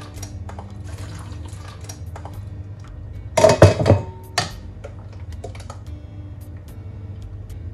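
Lemon tart custard mixture pouring through a fine mesh sieve into a saucepan, then a loud clatter of glass and metal about three and a half seconds in as the glass mixing bowl is set down and the metal sieve is handled on the pan, with a single knock shortly after and light taps later.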